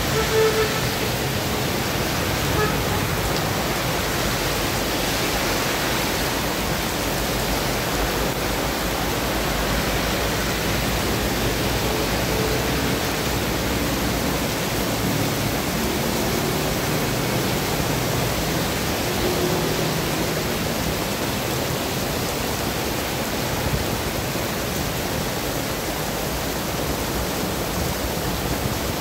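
Heavy rain pouring steadily onto a flooded street, with passing cars and trucks adding a low rumble and tyre swish through standing water.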